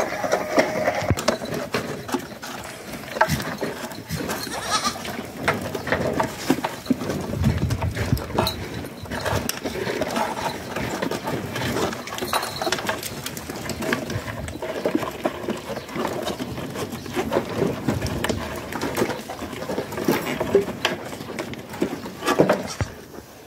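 Goat herd in a pen feeding on dried corn cobs from a metal tray: irregular knocks and clicks throughout, with a goat bleat near the start.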